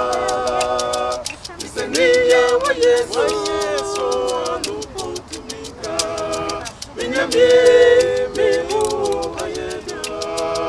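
A group of voices singing a gospel song over a steady percussive beat.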